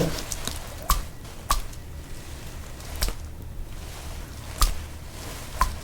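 Close-miked ASMR chewing: about five sharp, crisp crunches, spaced irregularly about a second apart.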